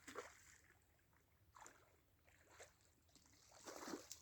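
Faint water sounds: a few brief splashes and drips at intervals, the loudest near the end.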